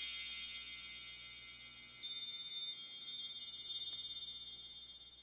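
Wind chimes tinkling: many high, ringing metallic tones struck at intervals, overlapping and slowly fading away near the end.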